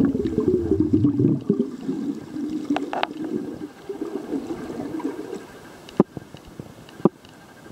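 Water heard underwater around the camera: a gurgling, bubbling rumble that dies away about five seconds in. Two sharp knocks follow about a second apart near the end.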